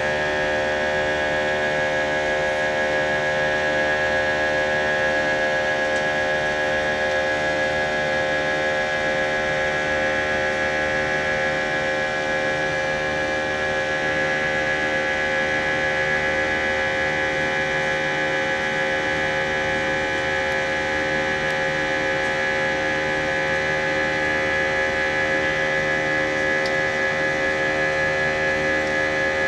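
Cabin drone of an Airbus A319's jet engines at climb thrust, heard from a seat beside the engine: a steady roar of air noise with several whining tones held at constant pitch, no change through the climb.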